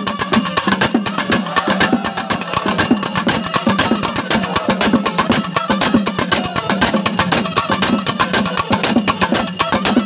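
Nadaswaram ensemble: a wavering, bending double-reed melody over a steady drone, with fast, dense thavil drum strokes.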